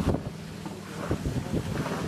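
Wind buffeting the microphone in irregular gusts over the wash of the sea, aboard a sailboat under way, with a faint steady low hum underneath.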